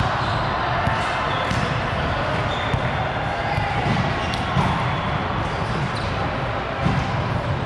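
Volleyballs being hit and bouncing on a hard gym floor, a few sharp smacks standing out over a steady din of play and distant voices.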